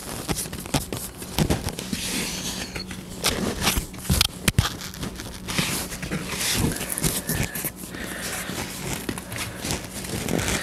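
Rustling and scraping of a golf-cart seat cover being handled and smoothed over a plywood seat board, with irregular scuffs of hands on the material and the wood, and one sharp click about four and a half seconds in.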